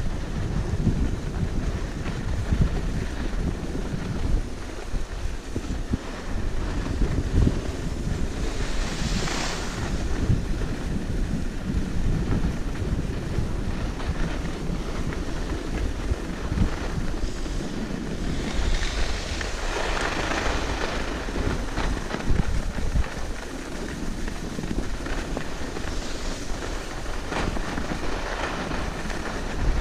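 Wind buffeting the microphone of a chest-mounted GoPro while skiing downhill, a constant low rumble. Skis hiss over groomed snow three times: about nine seconds in, around twenty seconds in and near the end.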